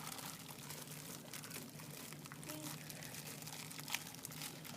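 Faint crackling and rustling as ground beef and its plastic packaging are handled into a pan, over a steady low hum.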